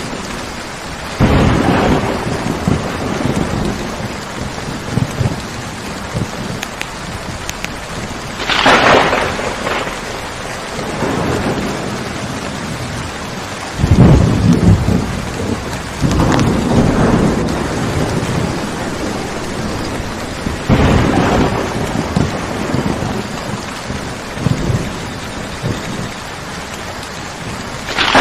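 Steady rain falling through a thunderstorm, with several sudden claps and rumbles of thunder breaking over it, the loudest about halfway through.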